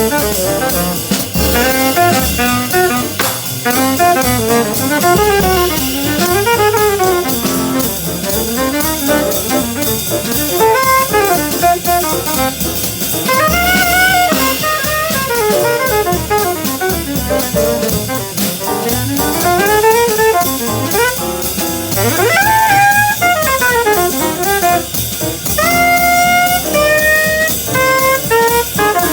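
Jazz band playing: a saxophone or brass horn solos in fast, winding runs over a drum kit, sweeping quickly upward about two-thirds of the way through and moving into long held notes near the end.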